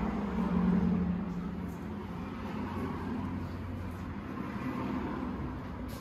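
Motorcycle engine idling: a steady low drone, louder for about the first second and a half.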